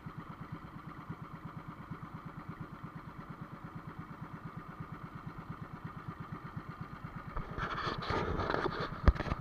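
Outrigger boat's engine running steadily with a rapid, even pulsing beat. About three-quarters in, a louder rushing noise builds over it, with a couple of sharp knocks near the end.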